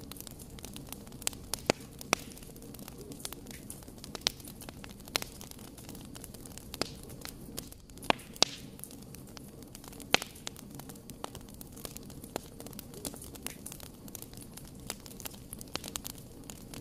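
Wood log fire burning: a steady low rumble of flames under irregular sharp crackles and pops from the burning logs, a few of them much louder.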